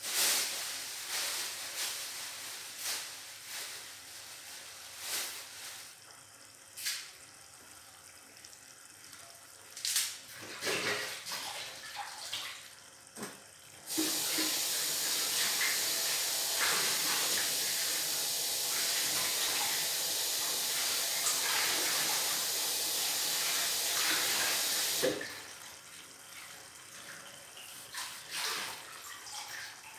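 A kitchen tap running steadily for about eleven seconds, turned on and off abruptly. Before it come scattered light knocks and clicks.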